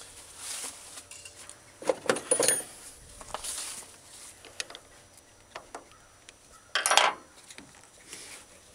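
Metal clinks and rattles of a battery terminal and hand tool as a car battery cable is being disconnected: a cluster of sharp clanks about two seconds in and a louder clank near seven seconds.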